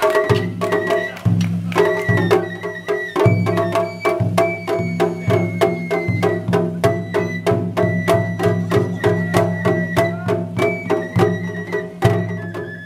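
Japanese festival music (matsuri-bayashi): a fast, even beat of drum and percussion strikes with a high held melody over it.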